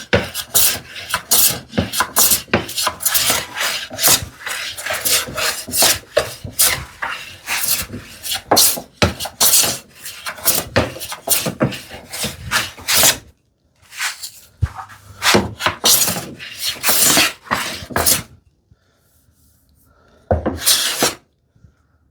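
Hand plane taking quick, short strokes corner to corner across a board to plane out twist. The run of strokes breaks off about thirteen seconds in, picks up again for a few seconds, then ends with one last stroke.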